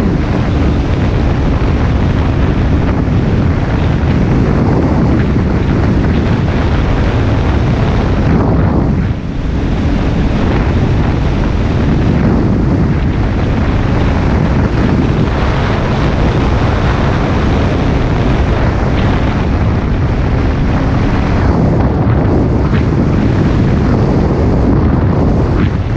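Heavy wind buffeting on a helmet- or bike-mounted action camera's microphone while a motorcycle rides along a road, with the engine's steady drone faintly under it. The wind eases briefly about nine seconds in.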